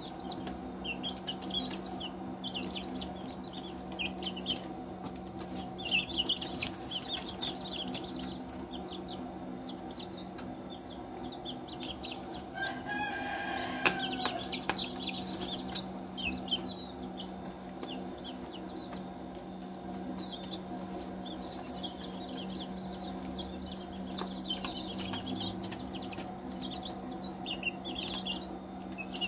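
Young chicks peeping in many short, high chirps while pecking feed from a plastic feeder tray, with a few sharp pecking clicks. A steady low hum runs underneath.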